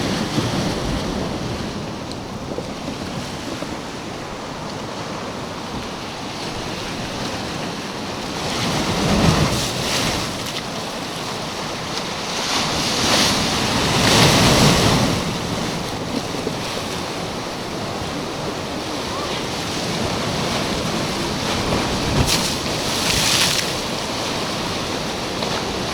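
Black Sea surf washing on the shore, a steady rush with waves swelling louder several times, most strongly about nine, fourteen and twenty-three seconds in, with wind buffeting the microphone.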